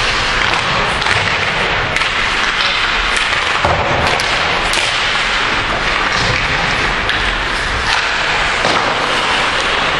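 Ice hockey play along the boards: a steady rink din with scattered sharp knocks and thuds from sticks, puck and players hitting the boards.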